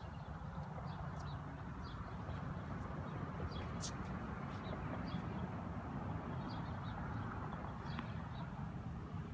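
Outdoor ambience between tennis points: a steady low rush of wind on the microphone, with scattered short bird chirps and a single sharp tap about four seconds in.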